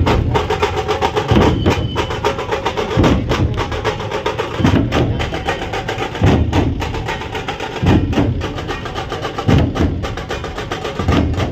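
Drum-led music: rapid percussion strokes over a heavy low beat that lands about every second and a half.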